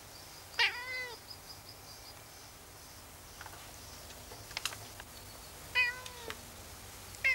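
Domestic cat meowing three times: once about half a second in, then twice near the end.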